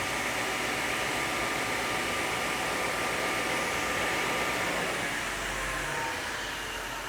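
Delta RT40 16-inch table saw's 7.5 horsepower motor running with the blade spinning free, a steady hum with a faint whine, smooth and quiet for a saw this size. About five seconds in the sound changes and starts to fall away, as if the saw is winding down.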